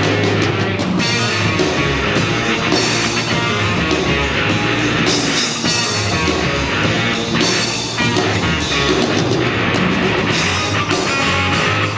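Rock band playing an instrumental passage: guitar over a steady bass line and drums, with no singing.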